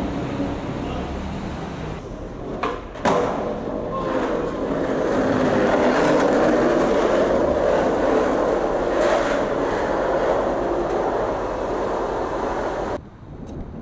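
Skateboard wheels rolling on concrete, a steady rolling noise, after two sharp clacks of the board about three seconds in. The rolling cuts off suddenly near the end.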